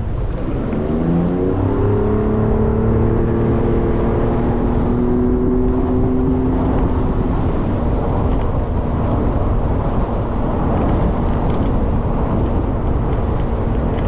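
Boat outboard motor revving up as the boat gets under way, its pitch rising over the first couple of seconds, then running steadily at speed over a constant rush of wind and water.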